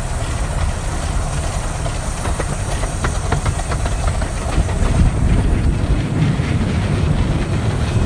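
A 15-inch-gauge steam locomotive and its train rolling along the track with steam shut off, heard from the footplate: a steady rumble of wheels on rail with a few clicks. It grows louder about five seconds in.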